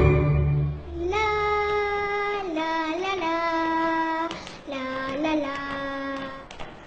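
A young girl's voice singing long, wordless held notes in two short phrases, with small slides between notes and a brief break in the middle. It comes in just after a low soft music chord fades out.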